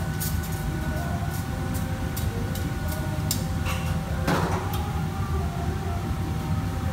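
Steady low roar of a commercial kitchen's exhaust hood and burners, with a faint steady hum. Scattered sharp clinks of metal utensils and pans run through it, and a brief louder hiss comes about four seconds in.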